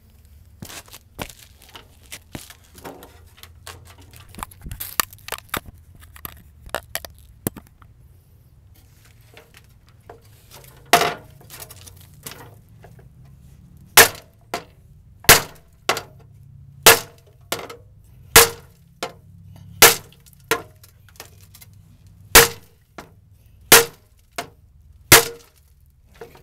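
Hand hammer striking the steel bumper of an 1987 GMC Jimmy to straighten a bend in it, each blow ringing briefly. Lighter clinks and knocks come first, then about ten heavy, evenly paced blows, roughly one every second and a half.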